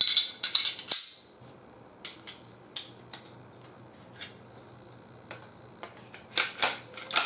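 Metallic clicks and clinks of Glock 19 Gen4 pistol parts being handled during reassembly. A burst of clicks comes in the first second as the slide is worked in the hands, then a few light clicks as the recoil spring and barrel go into the slide, and a louder cluster near the end as the slide is fitted onto the frame.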